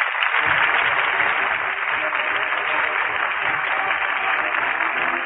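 Live studio audience applauding steadily, heard through an old radio recording that is cut off above the high frequencies.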